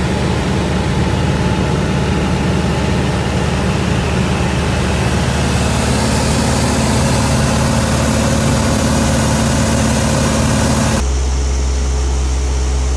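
Light piston airplane's engine and propeller droning steadily in flight, heard from inside the cockpit with rushing wind noise. About eleven seconds in, the drone shifts abruptly to a different steady pitch.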